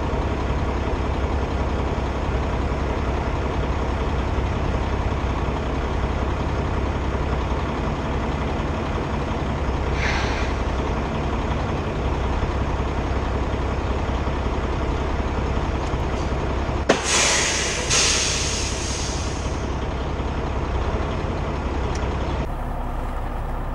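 Semi truck's diesel engine idling steadily. A short hiss of air comes about ten seconds in. Near the end a sharp click is followed by a longer burst of air hiss, typical of the truck's air brakes.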